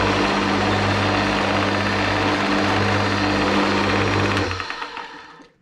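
Old woodworking lathe driven by a split-phase induction motor, running under power with a steady motor hum over a loud, rough mechanical rattle of the spindle and pulleys. About four and a half seconds in it is switched off and the noise dies away over about a second as it coasts down.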